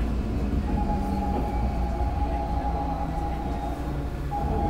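Seoul Metro Line 3 subway train running, heard from inside the carriage: a steady low rumble with a steady high-pitched tone that starts about a second in and breaks off briefly near the end.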